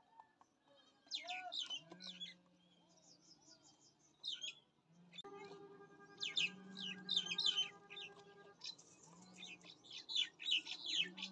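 Small birds chirping in quick, high bursts every few seconds, over a low note that repeats every second or two. A steady hum runs for about three seconds in the middle.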